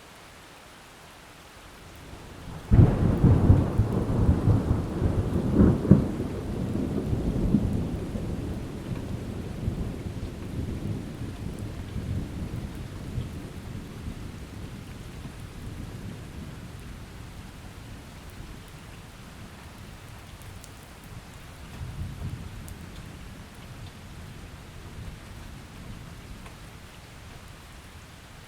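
Thunderstorm: steady rain, then a sudden loud clap of thunder about three seconds in that rolls and rumbles, dying away over the next ten seconds or so. Later a second, softer rumble of thunder rises and fades.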